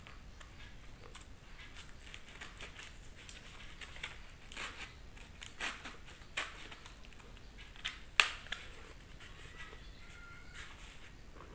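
Utility knife blade slitting the packing tape on a cardboard shipping box and the box being worked open: a run of short, irregular scratches and clicks, with one sharp snap about eight seconds in.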